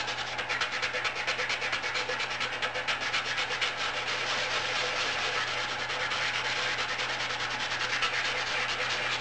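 A 300-grit wet sanding sheet is rubbed rapidly back and forth over formed plastic, giving a steady scratchy rasp of quick repeated strokes. It is wet-sanding down marked scratches and defects in the helmet shell.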